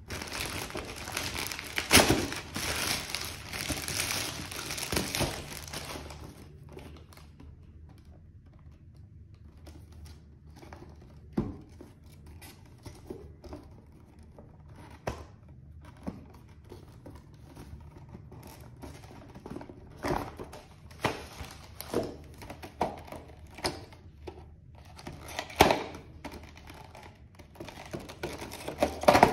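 Plastic poly mailer bag being torn open and crinkled by hand, a dense rustle for the first six seconds or so, then scattered crinkles, taps and clicks of the package being handled.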